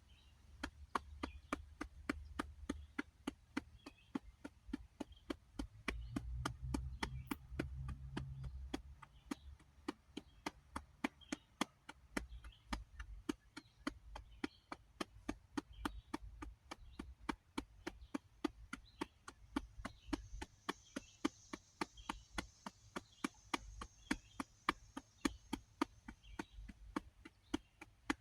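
Fingers tapping rhythmically on the belly, a steady run of sharp taps at about three a second.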